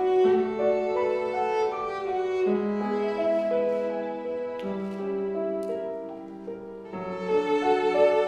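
Cello playing a slow melody of long, held notes, accompanied by piano. The playing grows quieter a little past the middle, then swells again near the end.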